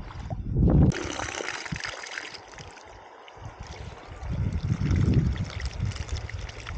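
River water flowing and trickling as a steady rushing hiss, strongest in the first couple of seconds. Low muffled rumbles come about half a second in and again around five seconds in.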